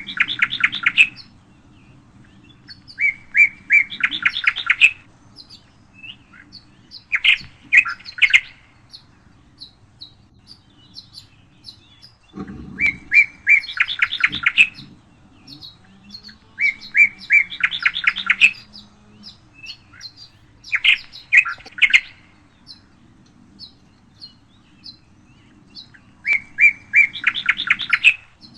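A songbird singing the same phrase over and over, roughly every three to four seconds: a few clear notes, then a fast trill. Faint high chirps fill the gaps between phrases.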